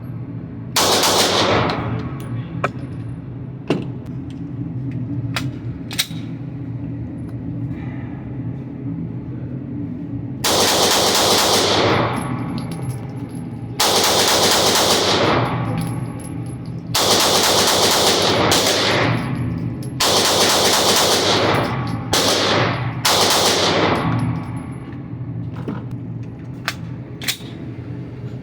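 9mm pistol fire from a Palmetto State Armory Dagger, a Glock-style pistol: a few single sharp shots, then several loud stretches of rapid shots about a second and a half each. A steady low hum runs underneath.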